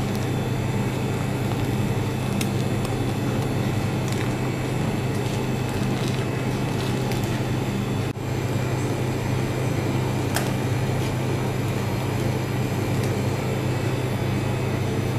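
Steady mechanical hum with a strong low drone and a hiss over it, broken for an instant about eight seconds in, with a few faint clicks.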